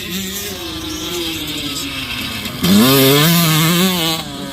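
Motocross bike engine running and revving, its pitch rising and falling; a louder rev comes in about two and a half seconds in, climbs, holds, then drops away.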